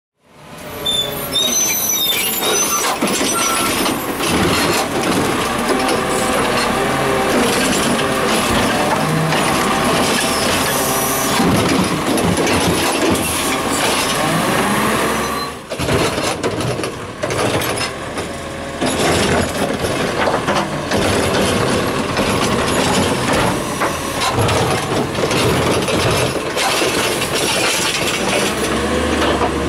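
Heil Rapid Rail automated side-loader garbage truck on a Crane Carrier LET2 chassis working a curbside pickup: its engine running under load while the truck stops and moves along. High squeals from its brakes as it comes to a stop. The brakes are squeaky.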